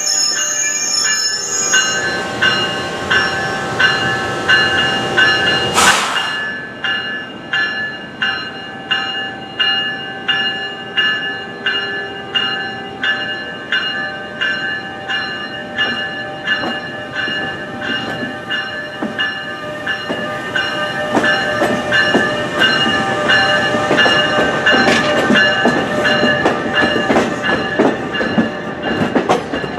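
NJ Transit electric train, an ALP-46 locomotive hauling multilevel double-deck coaches, rolling past a platform. Its wheels squeal high-pitched for the first couple of seconds. After an abrupt change about six seconds in, a second such train passes with evenly spaced wheel clicks over the rail joints.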